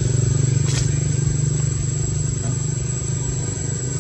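A motor engine running steadily at idle: a low pulsing drone, with a thin, steady high whine above it and a short click about three-quarters of a second in.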